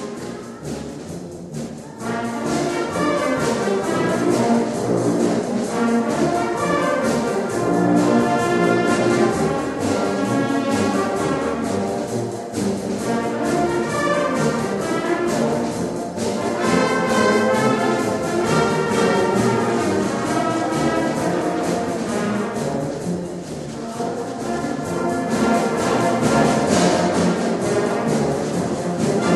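Orchestral background music led by brass, getting louder about two seconds in.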